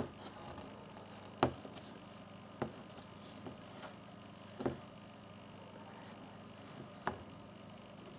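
Plastic electronic LED candles being handled: about five short, light clicks and knocks, a second or two apart, the strongest about a second and a half in, over a faint steady hum.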